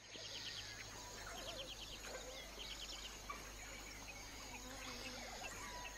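Dawn chorus in the African bush: several birds calling, with short chirps and quick repeated trills, over a steady high insect drone.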